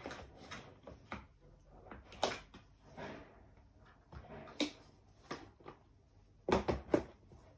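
Plastic clacks and knocks as the white slatted baskets and support posts of a plastic storage rack are handled and fitted together: single sharp clicks spread through, with a quick cluster of louder knocks near the end.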